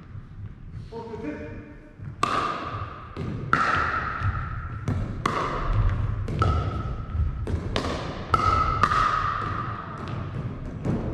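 A pickleball doubles rally: hard paddles striking the hollow plastic ball with sharp, ringing pocks, about a dozen hits, closer together in the second half as the players volley at the net. Each hit echoes in the large gymnasium.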